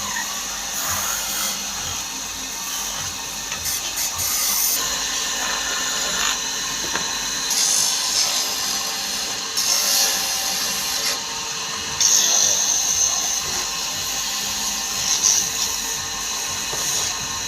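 Power tool working wood: a hissing cutting noise that changes every second or two.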